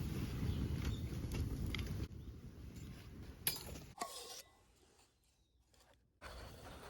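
A low, steady rumbling noise that cuts off abruptly, then two sharp clinks about half a second apart, the second ringing briefly with a falling tone.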